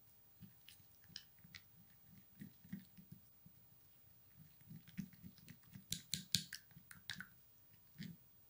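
Small plastic spoon stirring a thick, wet paste of powder and milk in a small glass bowl: irregular soft clicks and scrapes against the glass, busiest and loudest about six seconds in.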